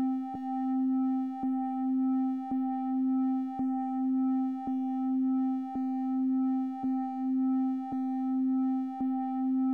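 A steady electronic tone with fainter higher overtones, broken by a short click about once a second: a 1 Hz audio pulse pattern.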